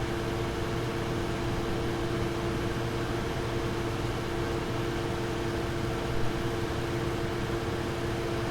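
Nvidia GeForce RTX graphics card fans whirring at a steady speed, with a constant two-note hum under an even rush of air. There is a small click about six seconds in.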